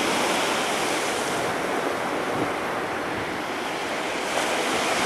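Rough sea surf: waves breaking and washing up the shore in a steady roar of noise that eases slightly and builds again near the end, with some wind on the microphone.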